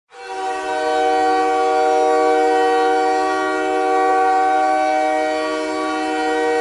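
Montreal Canadiens' goal horn sounding one long, steady chord of several tones, the signal that the team has scored.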